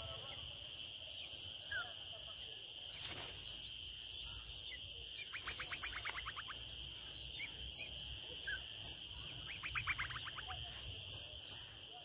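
Nestling birds begging at the nest: short, sharp, high chirps every second or two, with two rapid chattering runs, one about five seconds in and one about ten seconds in. A steady high drone runs underneath.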